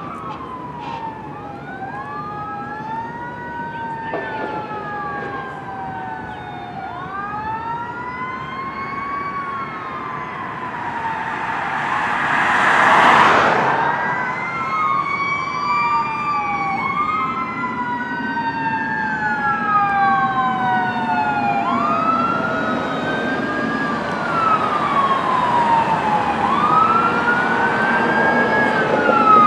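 Sirens of an approaching fire engine and rescue truck wailing, several wails overlapping, each rising quickly and falling slowly, growing louder as the apparatus nears. About halfway through, a rushing noise swells to the loudest point and fades.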